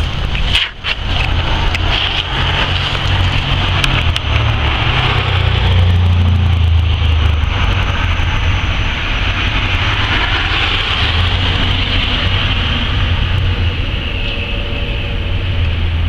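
Steady outdoor street noise with a heavy, uneven low rumble, the sound of road traffic and wind at a handheld microphone; it dips briefly just under a second in.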